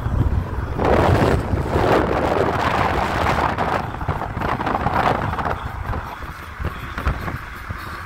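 Wind buffeting a phone microphone held out of a moving car's window, over a low rumble of tyres on the road. The rush of wind swells about a second in and eases off after about six seconds.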